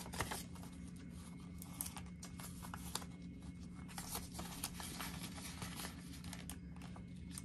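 Paper bills rustling and a clear plastic binder pocket crinkling as a bill is handled and slid into it, in soft, irregular rustles and small clicks over a low steady hum.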